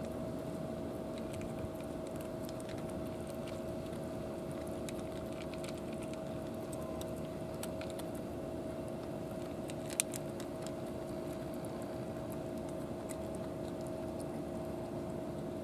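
Two cats crunching dry kibble from plastic bowls: faint, irregular crisp clicks. These sit over a steady background hum with two held tones, with one sharper click about ten seconds in.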